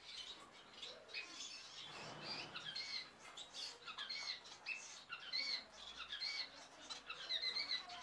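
Caged society finches (Bengalese finches) calling: a run of short, high, arched chirps, two or three a second.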